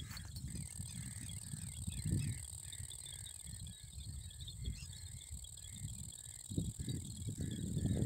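Insects such as crickets droning with a steady high tone, joined by a short chirp repeating about twice a second. Low, irregular buffeting on the microphone is louder than both.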